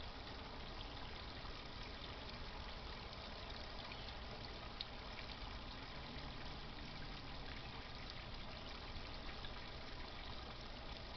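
Steady trickle and splash of water from a garden pond pump.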